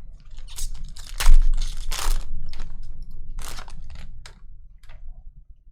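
Trading card packs and cards being handled: crisp crinkling bursts and irregular clicks and rustles, the loudest about a second in.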